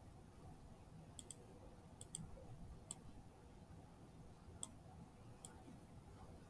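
Computer mouse clicking: about six short, sharp clicks spread through a near-silent stretch, some in quick pairs, with a faint low room hum underneath.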